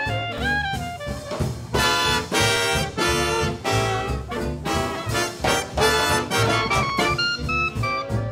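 Swing big band playing live. A single melodic line with pitch bends gives way, about two seconds in, to the full brass section hitting loud, short chords again and again, before a single line returns near the end.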